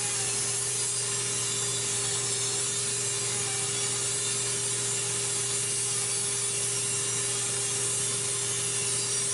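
Electric nail drill running steadily, grinding down a toenail: a continuous hiss over a low hum, with a thin steady whine.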